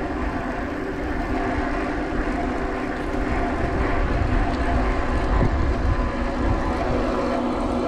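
An e-bike riding along, with a steady electric-motor whine over tyre noise and wind rumbling on the microphone.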